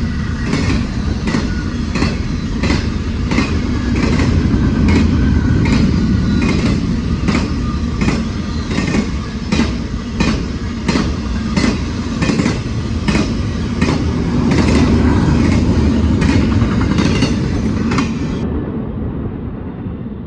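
Norfolk Southern freight train rolling past, with a loud, steady rumble and a regular rhythm of wheel clicks over the rail joints, about two a second.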